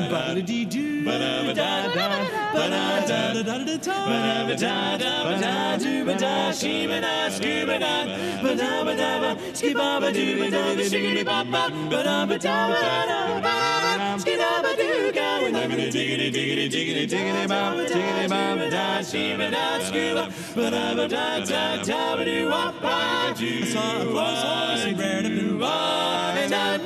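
Male barbershop quartet singing a cappella in close four-part harmony.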